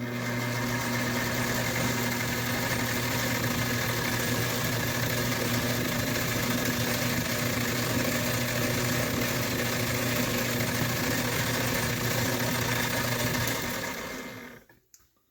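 Metal lathe running with a steady motor hum while turning a 1/4-inch rod down toward a 5 mm spigot for an extruder gear; it shuts off and spins down near the end.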